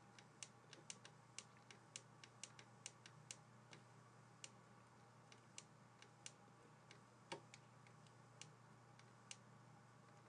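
Faint, irregular clicks and taps of a stylus on a tablet as words are handwritten, coming quickly at first and more sparsely later, over a faint steady low hum.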